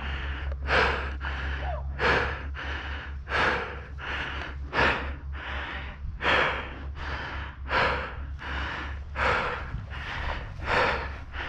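A paintball player panting hard behind his mask, close to the microphone, in a steady rhythm of a breath about every two-thirds of a second, out of breath in the middle of a speedball point.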